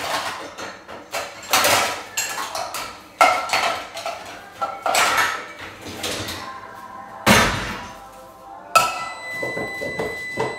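Kitchen clatter of dishes, pots and utensils being handled: a string of sharp knocks, clinks and scrapes at uneven intervals.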